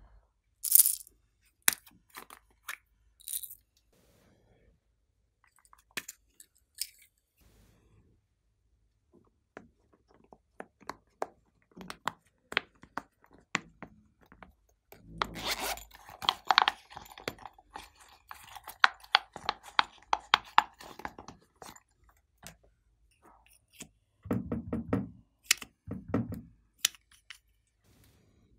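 Small plastic objects handled with scattered clicks and scrapes, then a pop-it fidget toy pressed bubble by bubble: a quick run of popping clicks for several seconds from about the middle, and a few deeper pops near the end.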